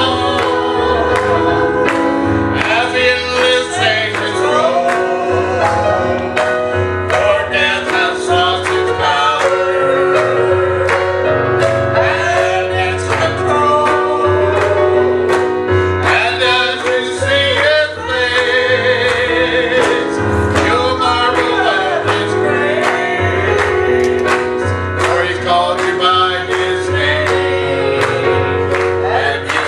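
Live gospel worship music: voices singing over a band with steady bass notes and a regular drum beat.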